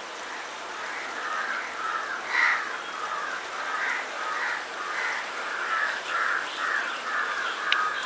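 A bird calling over and over in a quick series of short notes, about two to three a second, starting about a second in, over a steady hiss.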